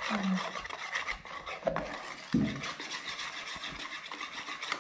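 Wire whisk beating pancake batter in a metal pot, the wires scraping and rasping against the pot in quick, even strokes.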